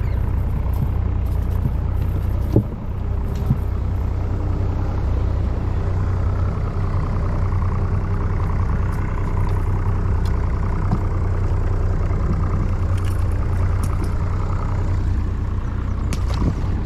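Boat motor running steadily at low speed with a low, even hum. A single knock sounds about two and a half seconds in.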